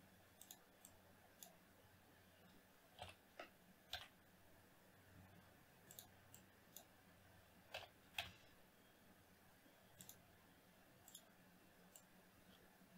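Faint, irregular clicking of a computer keyboard and mouse, about a dozen sharp clicks scattered through, the loudest pair about eight seconds in.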